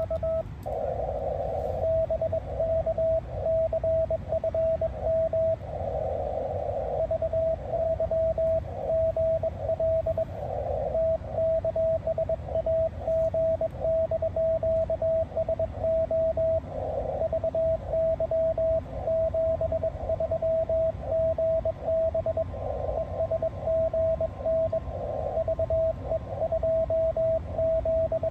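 Morse code (CW) heard through an amateur HF radio: a single steady tone keyed rapidly on and off, over constant band hiss and low rumble. Short bursts of noisy interference sit at about the same pitch as the tone.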